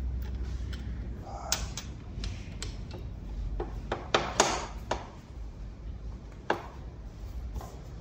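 Hex key working the saddle clamp bolt under an e-bike seat: a string of irregular metal clicks and ticks as the key is turned and repositioned, several close together about four seconds in.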